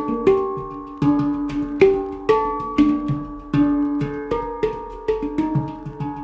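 Golden Sound handpan tuned to a pygmy scale, played with the fingers: a flowing rhythmic pattern of ringing steel notes, struck every quarter to half second, with short taps between them.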